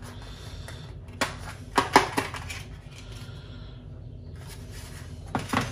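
Cardboard packaging and small parts being handled on a wooden chopping board: a run of light knocks and clicks a little after a second in, and another brief clatter near the end.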